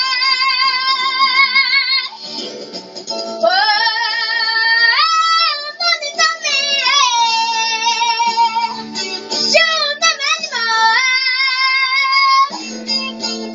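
A girl singing into a handheld microphone. She holds a long note with vibrato at the start, then sings rising, sliding phrases with more held notes.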